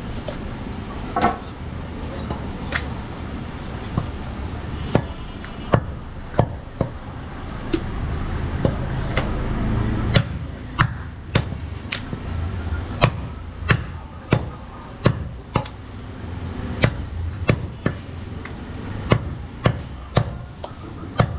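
Butcher's cleaver chopping goat ribs and meat on a wooden chopping block: a run of sharp chops, spaced out at first, then coming about one and a half a second from about halfway through.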